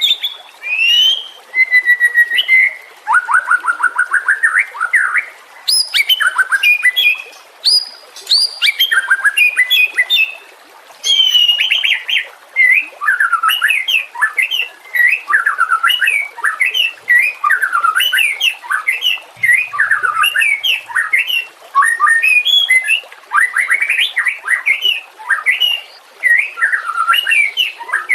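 White-rumped shama singing a long, varied song: loud clear whistled notes that sweep up and down, rapid trills and quick strings of notes, with thin high chips above them and only short pauses between phrases.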